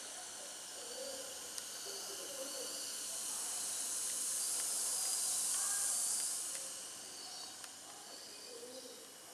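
A soft, even hiss that swells over a few seconds from about the middle and then fades, with faint bird calls behind it.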